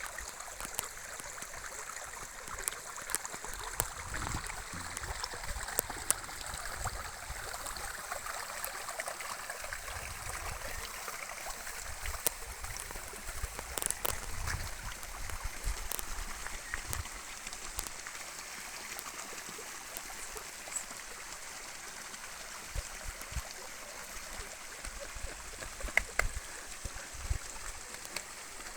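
Stream water running steadily: an even rushing, with a few sharp clicks and irregular low rumbles throughout.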